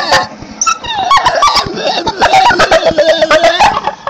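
Dog whining at a squirrel in high, warbling squeals that slide up and down in pitch, mixed with rapid clicking: an excited, dolphin-like chatter. It dips briefly in the first second, then keeps going almost to the end.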